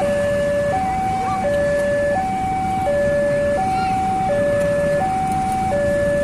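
Electronic two-tone railway level-crossing alarm sounding, alternating evenly between a higher and a lower tone about every 0.7 seconds, over a steady rumbling noise.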